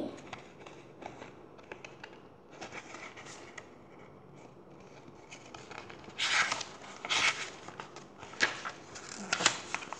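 Pages of a picture book being turned by hand, the paper rustling and swishing. Soft rustles come first, then several louder page flips in the second half.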